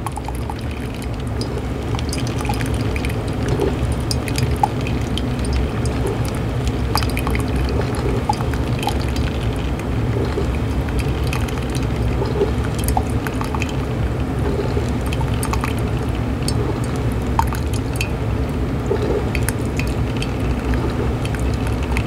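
Black & Decker DCM6 single-cup coffee maker brewing: water streams and drips from the brew basket into a ceramic mug, splashing, over a steady low rumble, with many small drips and ticks throughout.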